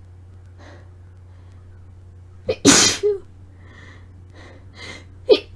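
A woman sneezing twice, each sneeze an induced one: a quick intake of breath and a loud sneeze about two and a half seconds in, then another intake and sneeze starting near the end.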